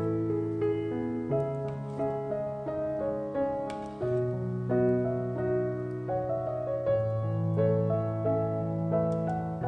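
Background piano music: a melody of notes changing about every half second over low bass notes held for a second or more.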